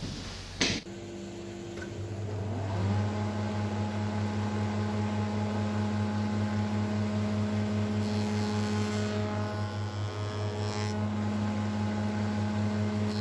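A spindle moulder starts with a click, runs up to speed over about two seconds, then runs steadily with a hum. A couple of brief hissy passages come in near the end as the cutter chamfers the edge of a board fed past it.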